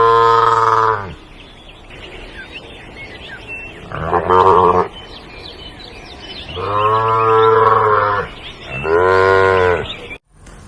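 Cow mooing four times, each moo long and low at a steady pitch. Faint bird chirps can be heard between the moos.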